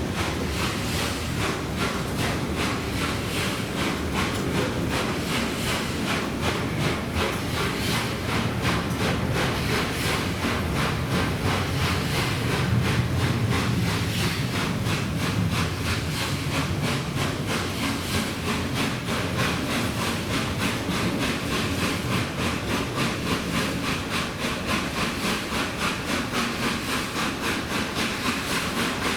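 Peppercorn A1 class 4-6-2 steam locomotive 60163 Tornado working steadily under steam, its exhaust beats coming as an even, rapid rhythmic chuffing over a hiss of steam and train noise.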